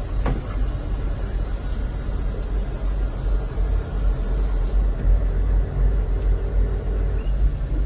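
Motor yacht's engine running under way with a steady low rumble, heard from the helm inside the wheelhouse.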